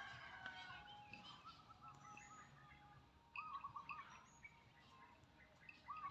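Faint birdsong: a short warbled phrase repeated about three times, a couple of seconds apart, with scattered higher chirps between.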